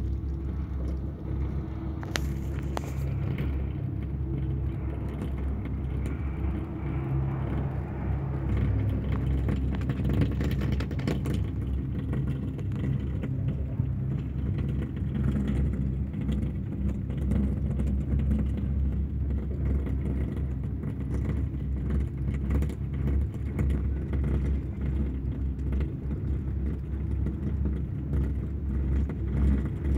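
Steady low rumble heard from a moving open chairlift: wind buffeting the phone's microphone over the hum of the lift's haul rope and running gear, a little louder from about eight seconds in.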